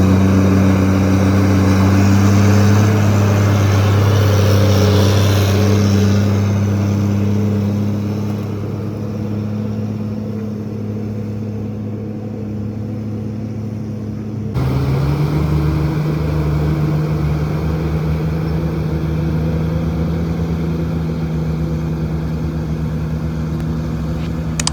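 Heavy diesel engine of construction machinery running steadily, with a rush of noise over it in the first few seconds that eases off. About two-thirds of the way through the sound switches abruptly to another steady engine hum, a little higher in pitch.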